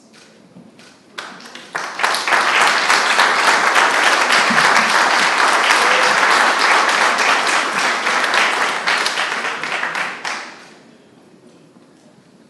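Audience applauding. A few scattered claps come about a second in and swell quickly into full, dense applause, which dies away near the end.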